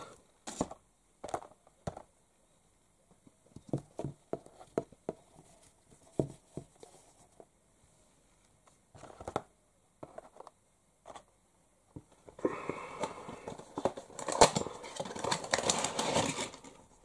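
Scattered small clicks and knocks of plastic toy figures being handled and set down on a cardboard diorama, then a few seconds of louder crinkling and rustling near the end as a boxed figure in its packaging is handled and put in place.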